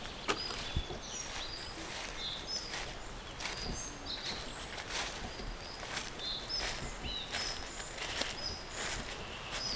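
Woodland birds calling with many short high chirps, over a faint outdoor background, with irregular crackles and rustles of footsteps on dry leaf litter.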